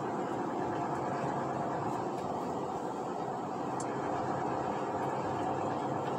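Steady engine hum and road noise heard from inside a truck cab while driving along a highway.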